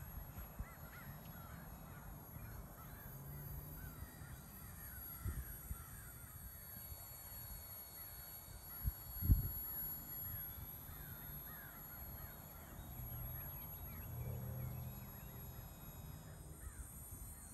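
Birds calling repeatedly in short falling calls, over a low outdoor rumble, with one dull thump about nine seconds in.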